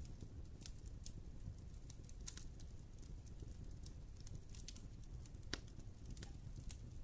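Wood fire burning in a fireplace, crackling with irregular sharp pops and snaps over a low steady rumble of the flames; the loudest pop comes about five and a half seconds in.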